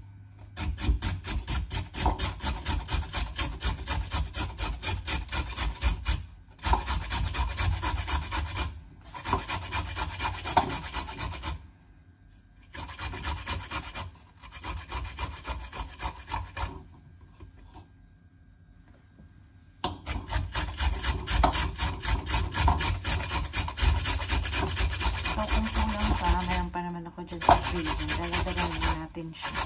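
A frozen carrot being grated on a stainless steel hand grater into a ceramic bowl: rapid, rhythmic scraping strokes in runs. The runs are broken by several short pauses and one longer lull about two-thirds of the way through.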